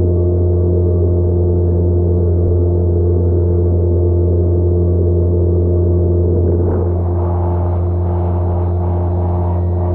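A boat's engine running steadily under way, a constant low drone. A rougher splashing noise joins in about seven seconds in.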